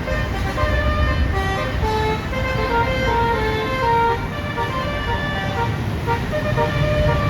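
A bus's Basuri 'telolet' multi-tone air horn playing a tune of short notes stepping up and down in pitch, over the low rumble of the bus engine and traffic.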